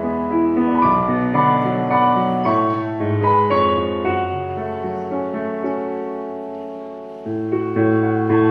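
Slow piano music: single notes over held chords, with one chord left to fade away for a few seconds before a new low chord comes in near the end.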